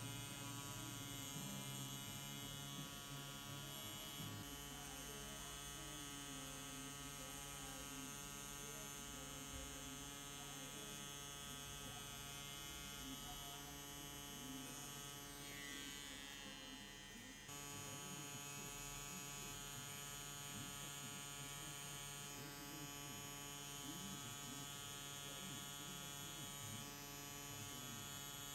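Rotary pen tattoo machine (FK Irons Xion Pen) running with a faint, steady electric buzz as the needle lines the skin, dipping briefly about two-thirds through.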